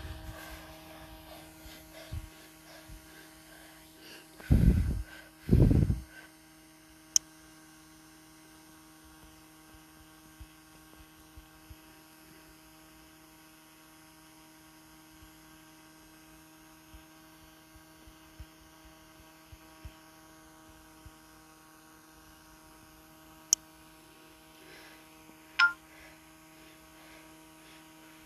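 Steady electrical hum at a low level, with two loud low thuds about five seconds in and a few sharp clicks later on.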